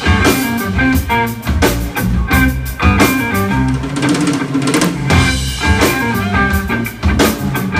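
Live band playing a funk instrumental: electric guitar, electric bass and drum kit, with a steady beat of drum hits.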